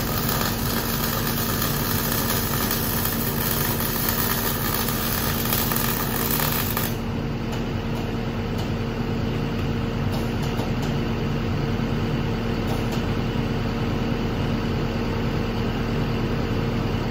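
Wire-feed (MIG) welding on a steel post's plate: a steady crackling hiss of the arc that stops abruptly about seven seconds in. Under it a steady machine hum runs on, with a few light clicks afterward.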